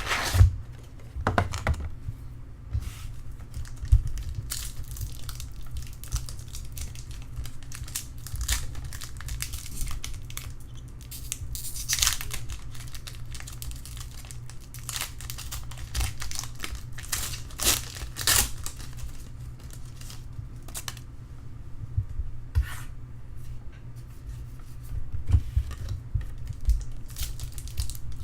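Trading card packaging being torn open and crinkled by hand: irregular tearing and crinkling rustles with sharp crackles throughout, over a steady low hum.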